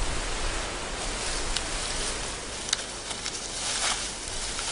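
Steady hiss of forest ambience, with a few light snaps and rustles in the second half.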